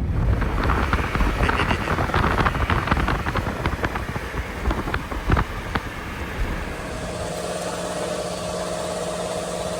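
Car driving, with road noise and scattered clicks and knocks, settling about seven seconds in to a steady engine hum.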